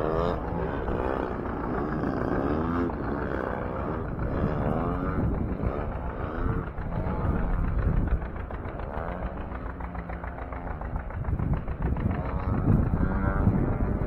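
Radio-controlled model airplanes flying overhead, their engines running continuously with the pitch repeatedly rising and falling as the planes swoop past and manoeuvre.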